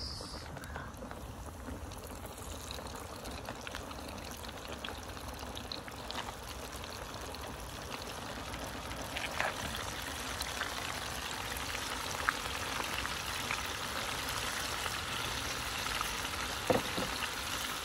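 Flour-coated meat kebabs deep-frying in hot oil: a steady sizzle with scattered crackles and pops, growing slightly louder.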